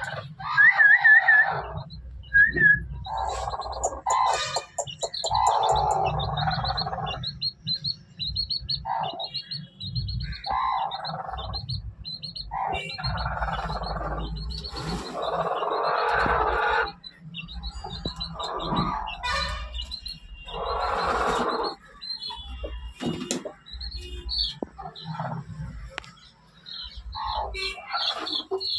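Aseel chickens calling: irregular clucks and squawks over a steady string of short, high chirps.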